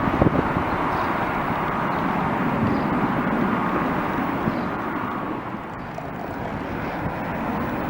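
Steady jet aircraft engine noise from a passing airliner, easing off a little about five seconds in and then building again.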